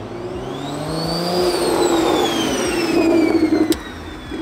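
Toyota A90 Supra's turbocharged B58 inline-six, fitted with a DocRace big turbo, accelerating past with a high turbo whine that rises for about a second and a half and then falls away. The engine grows louder until a sharp click about three and a half seconds in, after which it drops off.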